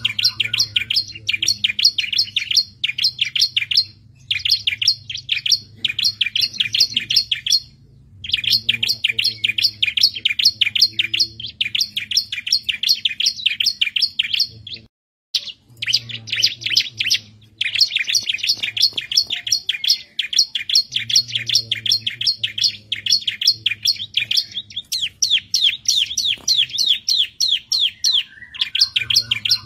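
Bar-winged prinia (ciblek) singing: long runs of fast, high repeated notes, many a second, in phrases a few seconds long with short pauses between them, and one brief break about halfway. A faint low hum lies underneath.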